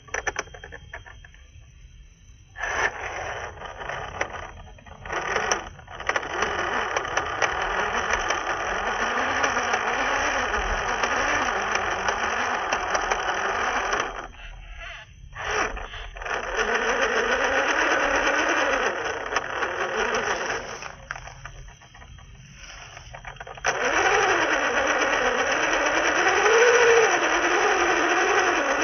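Electric motor and gearbox of an MN-series scale RC crawler whining under throttle as its tyres spin in mud, pitch wavering with the load. It runs in long bursts, broken by short pauses early, around the middle and about three quarters through.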